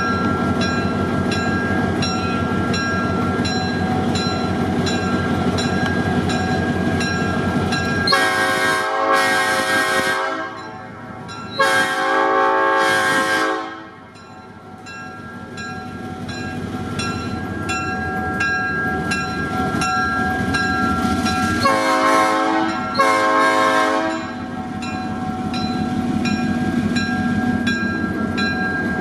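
A diesel locomotive engine runs steadily while a locomotive air horn sounds two long blasts and then, about ten seconds later, two short ones.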